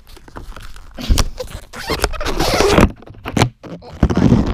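Close-up handling noise on a GoPro camera: rubbing and scraping against the camera, broken by many sharp clicks and knocks, with the loudest stretch from about a second in to nearly three seconds.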